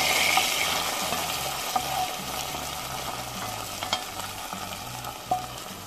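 Hot, dark-browned fried onions tipped onto simmering nihari gravy, sizzling loudly at first and dying down. A wooden spoon knocks against the pot a few times as the onions are spread.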